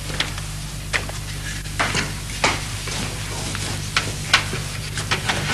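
Cooking in a pan: a utensil clicks and scrapes against it about a dozen times, irregularly, over a steady frying sizzle, with a low steady hum underneath.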